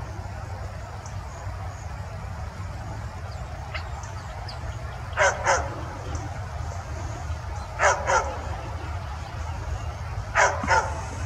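Large black dog barking in three pairs of short, sharp barks, each pair about two and a half seconds after the last, over a low steady rumble.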